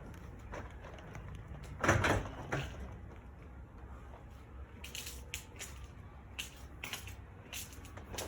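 Metal clanking from garage door hardware (rollers, track and door sections) being worked by hand: one loud clatter about two seconds in, then scattered light clicks and taps.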